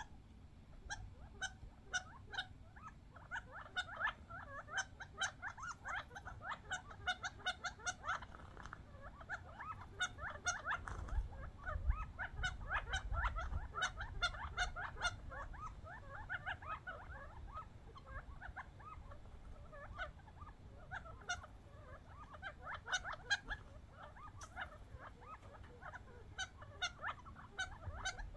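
A flock of wild quail feeding on birdseed and squabbling over it: soft, overlapping chattering and clucking calls from many birds, with many quick, sharp clicks among them.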